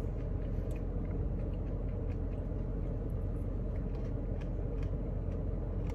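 Steady low rumble of an idling car, with a few faint small clicks over it.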